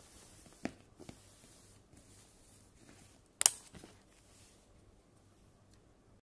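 Handling of a cardboard board-game board and sheet of playing pieces: a few light clicks and taps, the sharpest about three and a half seconds in.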